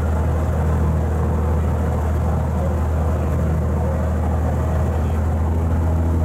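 Seabass water bus's engine running steadily at cruising speed, a deep constant drone, with the wash of its propeller wake churning behind the stern.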